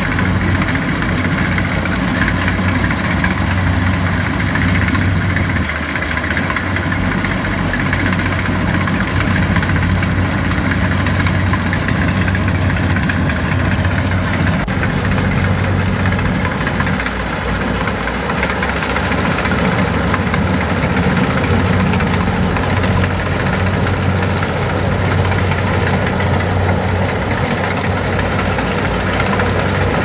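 Kubota DC70 rice combine harvester's diesel engine running steadily as the machine cuts standing rice.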